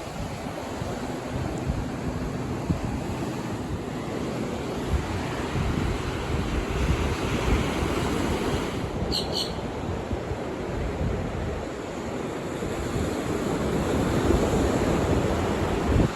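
Ocean surf washing onto the beach, with wind on the microphone; a short high double chirp about nine seconds in.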